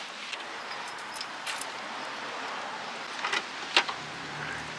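Steady outdoor background noise with two sharp clicks about three and a half seconds in, and a low hum that starts near the end.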